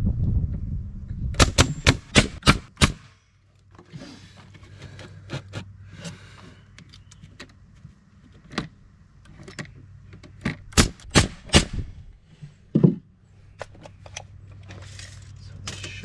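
Nails being driven into wood in two quick runs of sharp strikes, about four a second, with a few single strikes between them. A low rumble stops about three seconds in.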